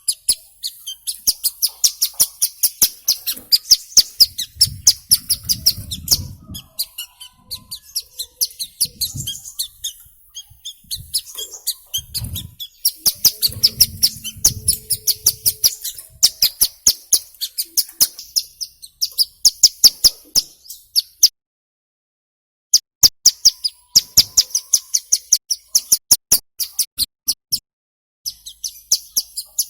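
Ciblek gunung, a mountain prinia, singing a fast run of sharp, high chipping notes, many a second, in long bouts with brief breaks and a short silent gap about two-thirds of the way through.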